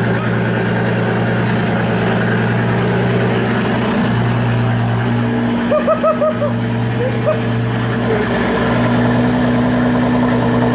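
Bentley W12 engine idling with the exhaust removed after the primary pipes, a steady, loud open-pipe drone. A person laughs briefly about halfway through.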